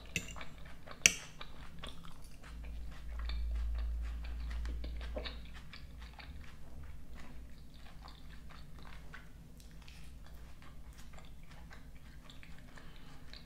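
Close-up chewing of a mouthful of salad, with many soft crunches as it is chewed. A single sharp click comes about a second in, and a low rumble runs for a few seconds from about two seconds in.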